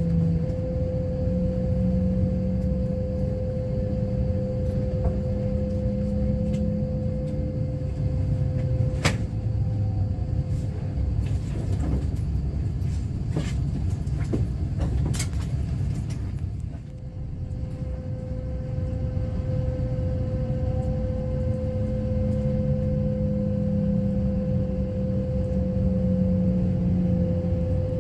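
Kintetsu limited express electric train running, heard from inside the passenger car: a low rumble with a steady motor whine. The whine drops out for about ten seconds midway and then comes back. A few sharp clicks sound during the quieter stretch.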